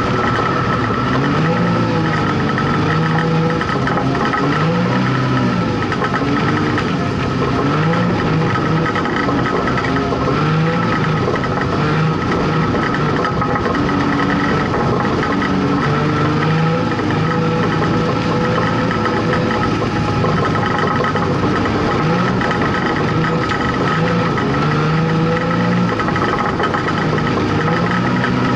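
Street stock race car's engine heard from inside the cockpit, rising and falling in pitch again and again as the throttle is opened down the straights and lifted into the turns. A steady high whine runs over it.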